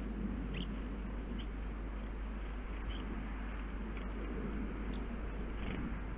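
Small birds at a feeder giving short, high chirps, about a dozen scattered through, over a steady low rumble.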